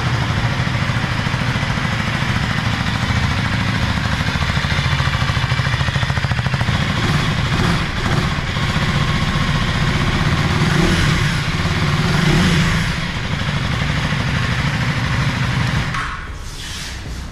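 Exhaust note of a 2024 KTM Duke 390's 398 cc single-cylinder engine running at idle, revved up once about ten to twelve seconds in. The sound drops away sharply near the end.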